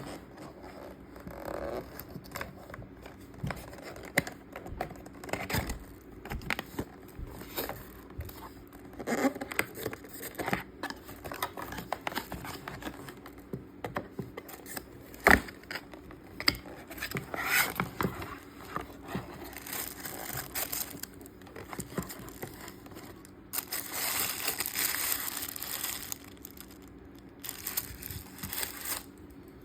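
Packaging being handled and opened for unboxing: crinkling and tearing of wrapping, with scattered taps and clicks, and a longer spell of rustling late on.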